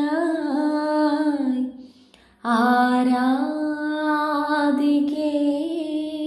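A woman singing a slow Malayalam song in long, drawn-out notes, with a brief break about two seconds in.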